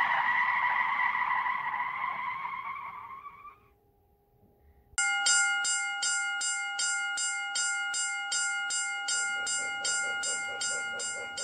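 Railroad crossing bell ringing over and over, about three strokes a second, starting about five seconds in. Before it, a breathy hiss fades away over the first few seconds.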